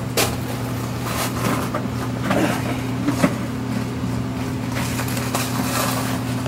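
Steady low hum, with scattered knocks and scrapes as a sump pump and its plastic basin are handled and set down into gravel.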